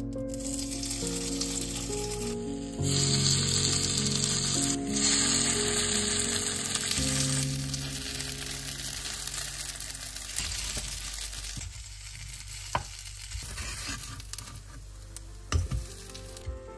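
Grated-potato and sauerkraut pancakes sizzling as they fry in a non-stick pan, strongest in the first half and dying down after about ten seconds. There are a few light clicks near the end.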